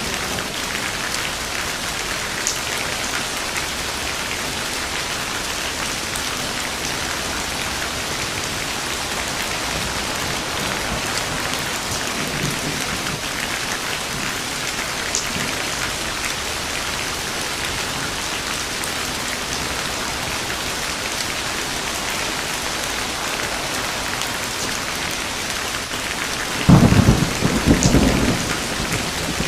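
Steady heavy rain falling on a surface, with scattered drop ticks. Near the end, a loud clap of thunder with a low rumble lasts about two seconds.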